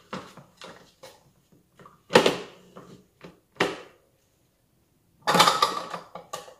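Hard plastic knocks and clatter from a food processor bowl being handled and packed with sliced shallots and garlic, the motor not yet running: scattered light taps, a sharp knock about two seconds in, another just after, and a denser clatter near the end.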